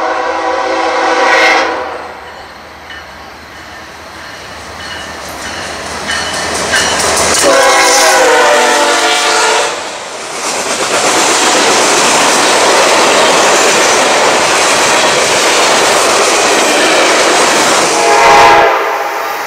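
Train air horn sounding a chord of several tones three times: a blast in the first two seconds, a longer one about seven and a half seconds in, and a short one near the end. Between the later blasts a fast train passes with a loud, steady rush of wheels and cars.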